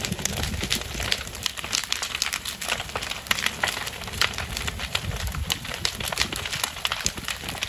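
Large fire in a wooden waste-bin shed, crackling with many sharp irregular pops over a low rumble.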